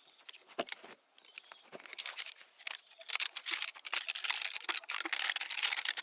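Camping gear being handled and packed: scattered clicks and knocks, then a dense crinkling rustle from about three seconds in.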